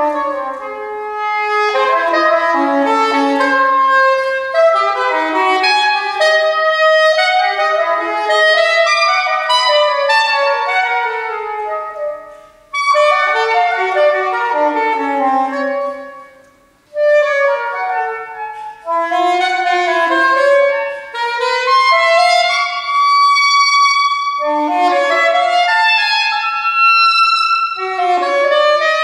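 Solo saxophone playing a fast, winding melodic line of quick notes, broken by two short pauses about 13 and 16 seconds in.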